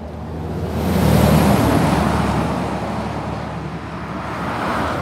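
A car passing by on the road: tyre and engine noise swells to its loudest about a second in and then fades, and it swells again near the end as more traffic comes by.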